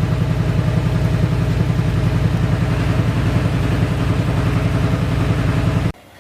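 Toyota Prius XW30's 1.8-litre four-cylinder petrol engine running with an even pulsing beat and heavy knocking: one cylinder is dead and the engine is misfiring. It cuts off abruptly near the end.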